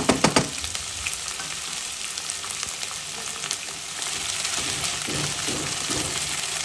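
Chopped potato, carrot, peas and onion sizzling steadily in hot oil in a pot while a wooden spatula stirs and scrapes them, with a few sharp knocks of the spatula right at the start.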